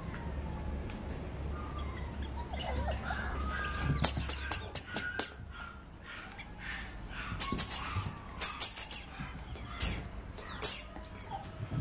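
Rubber squeaky toy squeaking under a Papillon puppy's bites: a quick run of squeaks about four seconds in, another run a few seconds later, then two single squeaks near the end.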